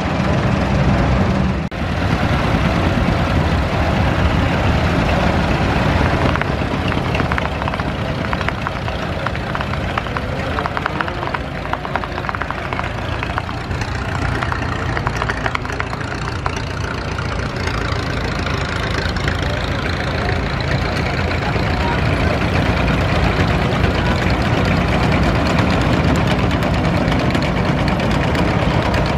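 Vintage tractor engines running as a line of old tractors drives slowly past, one engine after another coming to the fore. The sound changes abruptly about two seconds in, a rapid knocking engine stands out through the middle stretch, and a deeper engine is strongest near the end.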